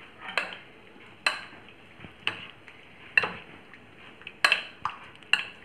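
Metal spoon clinking against a bowl while stirring soya chunks through a thick yogurt-and-spice marinade: about seven sharp clinks, roughly one a second, with soft mixing between them.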